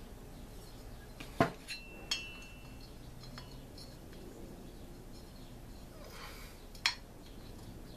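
A few light metallic clinks and knocks as the finned cylinder of a Stihl MS 290 chainsaw is handled and worked down over the piston. The loudest knock is about a second and a half in, one clink rings briefly, and another sharp click comes near the end.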